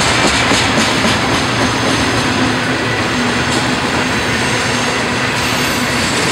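Freight train tank cars rolling past close by: the steady rumble and rush of steel wheels on rail, with a few clacks of wheels over the rail joints in the first second.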